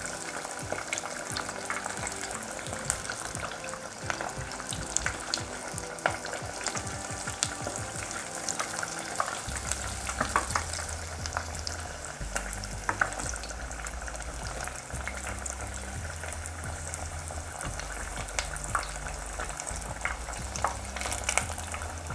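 Batter-coated boiled egg halves deep-frying in hot oil on high heat: a steady sizzle with frequent small crackles and pops.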